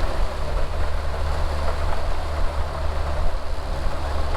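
Jon boat's outboard motor running steadily, a low even hum with rushing water and wind noise over it.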